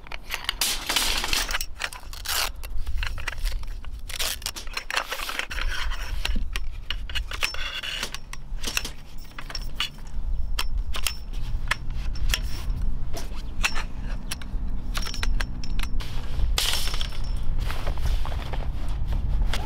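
Metal poles and plastic leg fittings of a folding camp cot clicking, clacking and scraping against each other as they are handled and laid out, with a rustle of the cot's fabric near the end.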